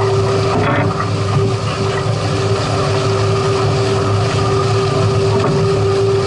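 Boat motor running at a steady speed, a constant hum and drone, over wind and water noise.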